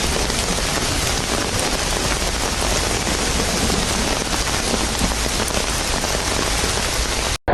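Heavy rain beating down on hard surfaces in a dense, steady patter, with a low rumble underneath; it cuts off abruptly near the end.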